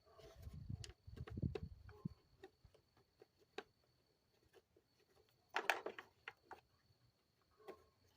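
Scattered light clicks and knocks of hand tools and small metal parts being handled during engine reassembly, with a louder clatter about six seconds in.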